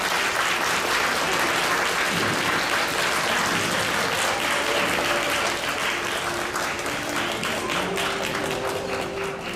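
Audience applauding, a dense patter of many hands that thins out and fades near the end.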